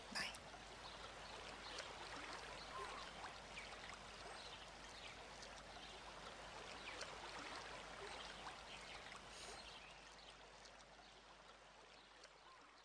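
Faint, steady trickle of running water with small ticks through it, fading away near the end.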